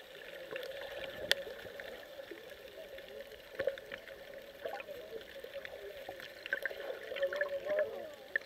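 Muffled underwater water noise with gurgling and scattered sharp clicks, picked up by a submerged camera, with faint muffled voices from above the surface.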